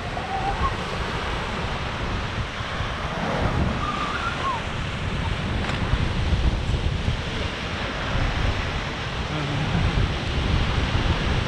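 Rough sea surf breaking and washing over rocks, with strong wind buffeting the microphone.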